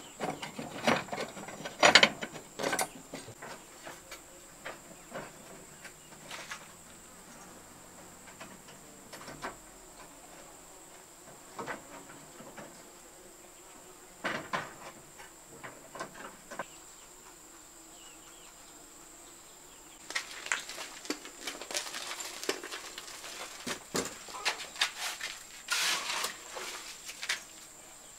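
Steel tie wire being twisted onto rebar mesh with pliers, a cluster of metallic clicks and clinks, followed by scattered taps of brick work and denser scraping near the end as mortar is worked in a steel wheelbarrow with a hoe. A steady high insect drone runs underneath.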